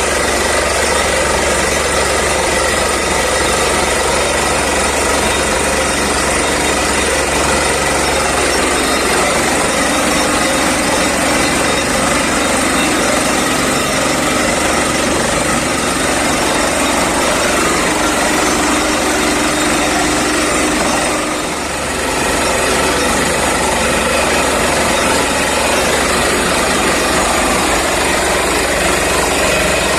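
Borewell drilling rig running steadily, a loud continuous engine and drilling noise, briefly dropping in level a little over twenty seconds in.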